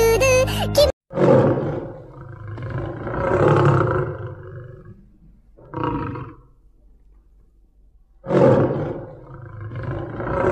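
Children's music cuts off about a second in. Then a recorded lion roar sound effect plays, each time a loud roar that swells and fades over a few seconds. A short growl follows near the middle, and the same roar starts again about seven seconds after the first.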